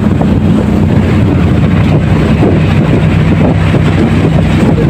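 A fishing boat's engine running steadily, with a low, even drone, and wind buffeting the microphone.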